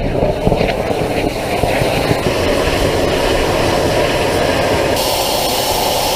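Nitrous–alcohol liquid rocket engine firing on a test stand: a loud, steady rushing noise, with a stronger hiss coming in about five seconds in. In this static fire a burst fuel line sprayed alcohol out the sides into a fireball while the nitrous blew out the nozzle.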